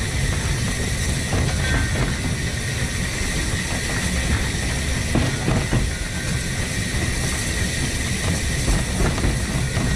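1915 Orenstein & Koppel steam locomotive running light along narrow-gauge track, heard from a microphone on the engine: a steady low rumble with a thin constant high tone and scattered clicks from the running gear and rails.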